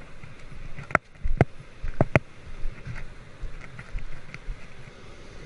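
A few sharp knocks, the loudest clustered about one to two seconds in, over a steady hiss of wind and surf.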